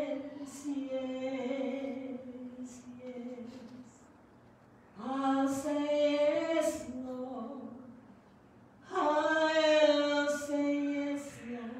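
A woman singing alone without accompaniment, in three slow phrases of long held notes with short pauses between them.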